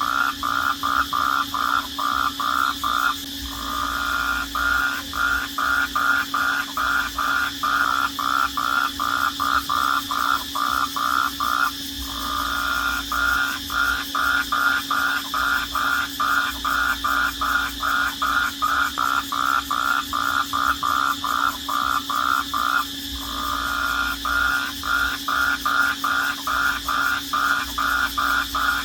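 Night chorus of crickets: a loud, rapid, regular chirping at about four chirps a second over a steady high-pitched trill. The chirping breaks off briefly three times, about 3, 12 and 23 seconds in.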